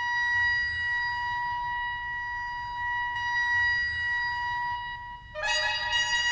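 Modular synthesizer music: a steady high tone with a ladder of overtones sounding over low rumbling noise, starting suddenly out of silence. A cluster of further tones joins about five seconds in.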